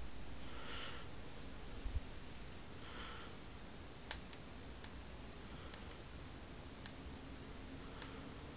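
Faint steady hum and background noise, with a soft low thump about two seconds in and a handful of sharp, scattered clicks in the second half.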